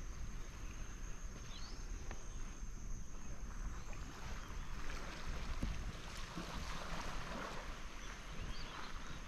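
Shoreline ambience: the gentle wash of small waves at a sandy river-mouth beach, with a low wind rumble. The wash swells in the middle of the clip, and a thin steady high tone and a couple of faint short chirps sit above it.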